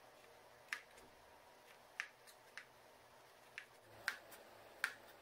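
Chef's knife chopping green bell pepper and green chillies on a plastic cutting board: about six sharp knocks of the blade striking the board, spaced irregularly, the loudest near the end.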